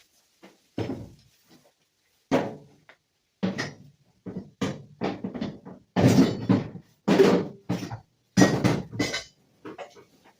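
A series of short metallic clanks and knocks, about a dozen, some in quick pairs and the loudest in the middle: steel box tubing being handled and set in place during subframe connector fitting.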